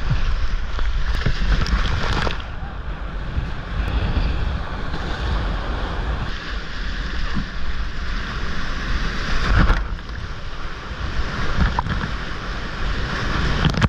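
Rushing, churning whitewater of a river in flood, heard from a kayak in the rapids, with wind buffeting the microphone. A louder splash comes about ten seconds in.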